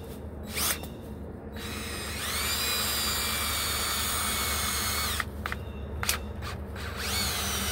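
Cordless drill working into thick red oak bark: the motor spins up with a rising whine and runs steadily for about three and a half seconds, then stops. A couple of light clicks follow, and a second short spin-up starts near the end.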